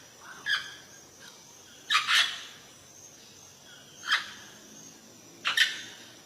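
Parrot giving short calls, four in all about one and a half to two seconds apart, the second and last each a quick double call, the loudest about two seconds in.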